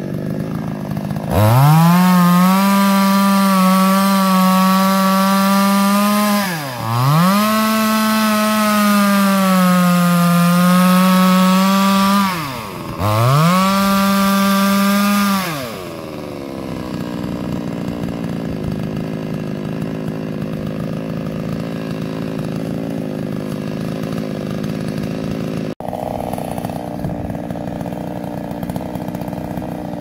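Gasoline chainsaw at full throttle sawing into a tree trunk, its engine note sagging slightly under load and let off twice briefly before revving up again. About halfway through it drops back to idle and idles steadily.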